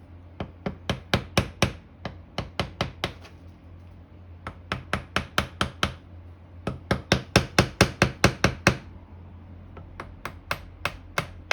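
Gentle taps around a stuck part of a vintage 1/15 HP General Electric motor, struck in five quick runs of several sharp taps, about five a second, to work the part loose.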